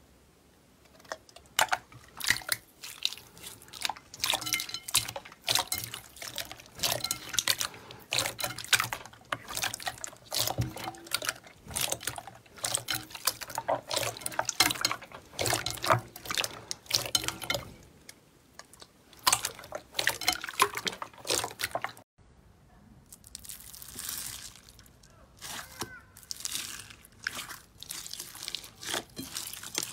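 Hands pressing and squishing clear, water-like slime, giving rapid irregular wet squelches, pops and clicks. About 22 seconds in, after a brief break, a hand pressing pink slime gives softer, quieter crackling.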